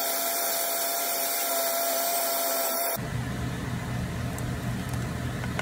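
Countertop blender motor running steadily at full speed with a constant whine, puréeing tomatoes into soup. About three seconds in it cuts off abruptly and a low steady hum takes over.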